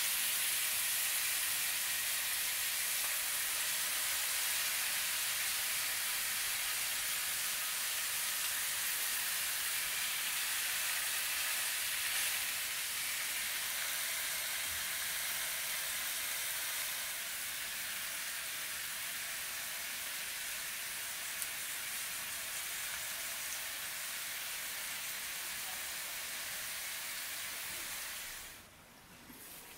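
Whole fish and chopped vegetables frying in hot oil in a pan: a steady sizzle that eases a little about two-thirds of the way through and cuts off shortly before the end.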